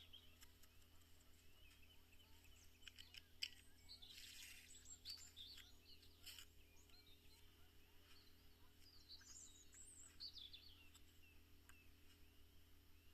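Faint birdsong: short chirps and twittering, over a low steady hum, with a few light clicks scattered through.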